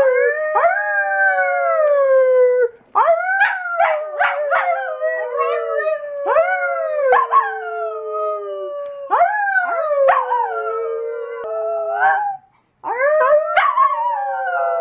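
Blue merle Australian Shepherd howling on a couch: about five long howls, each rising quickly and then sliding slowly down in pitch, with a few short yips mixed into the second one.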